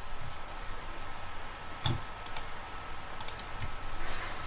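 A few scattered clicks and taps from a computer keyboard and mouse.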